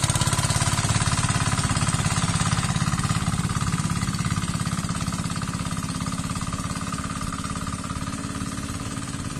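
Single-cylinder engine of a two-wheel hand tractor running steadily under load through paddy mud, a fast, even chugging that grows a little fainter toward the end.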